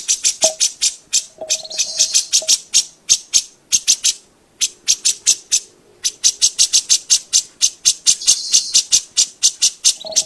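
Grey-cheeked bulbul (cucak jenggot) in full song, giving a fast run of sharp, high chattering notes at about five a second, with a short lull about four seconds in.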